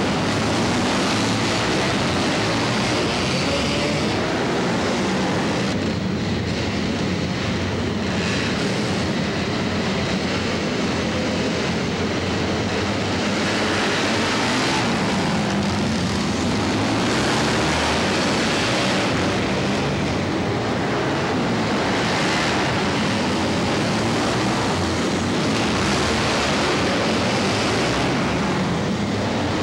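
Several flat-track racing motorcycles running together on a dirt track, their engines revving and easing off so the pitch rises and falls repeatedly.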